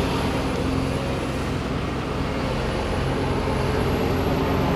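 Diesel engine of a large excavator running steadily, a low even drone that does not change pitch.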